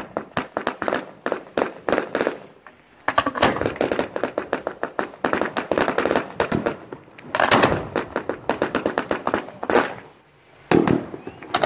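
Fireworks firing from the deck at close range: rapid volleys of pops and bangs, several a second, broken by two short lulls, one about three seconds in and one near the end.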